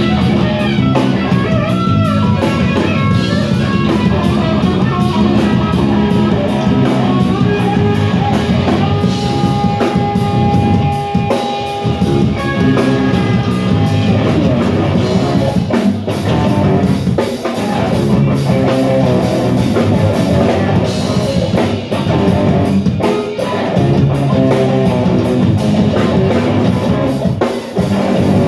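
Live rock band playing: electric guitars over a drum kit, with steady cymbal and drum hits keeping the beat.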